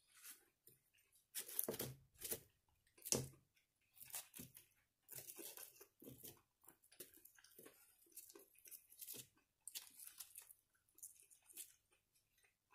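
Close-up chewing of crunchy deep-fried squid (ika karaage): a string of short crunches and mouth noises, loudest between about one and a half and three and a half seconds in.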